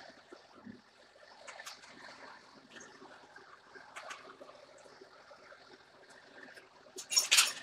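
Faint scattered clinks and taps of a heavy cast wheel being handled and seated in a large lathe chuck while it hangs from a hoist chain, ending in a short, loud clatter about seven seconds in.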